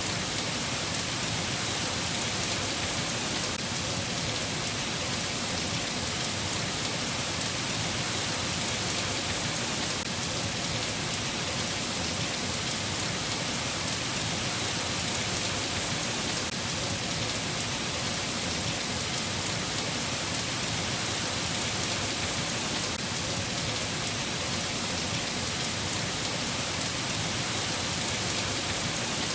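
Steady rain falling: an even hiss that does not let up or change, with no thunder claps.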